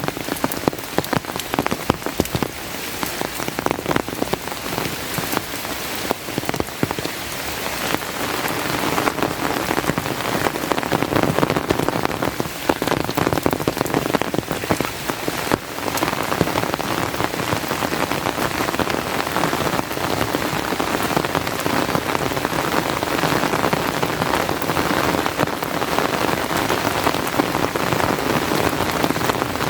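Steady heavy rain: a dense patter of close drops over an even hiss, a little lighter for the first several seconds.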